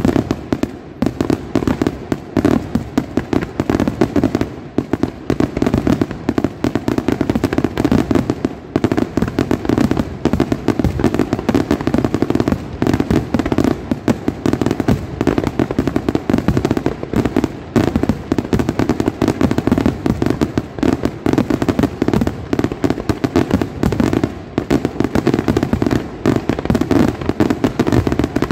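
Aerial firework shells bursting in a rapid, nearly unbroken barrage of bangs, many per second with no letup.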